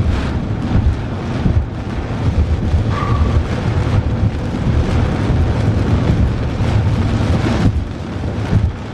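Wind buffeting a moving car as it drives through a squall line, a steady dense rumble of wind and road noise heavy in the low end. A faint short tone sounds about three seconds in.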